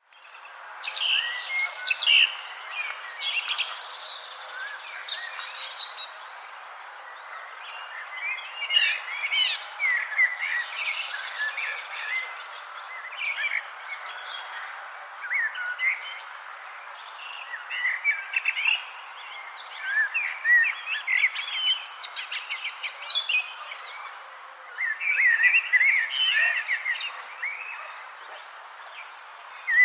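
Wild birds singing in a busy dawn-chorus-like mix of quick, high chirps and trills that come in bursts, over a steady high-pitched pulsing insect trill.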